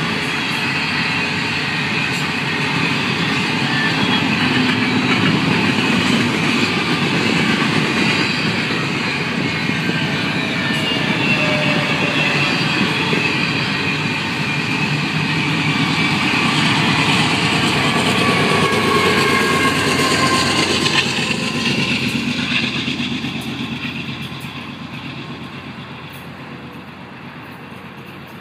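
Double-stack intermodal well cars of a freight train rolling past at speed: a steady rumble of wheels on rail with faint high squealing tones. The end of the train passes about three quarters of the way through, and the sound fades as it moves away.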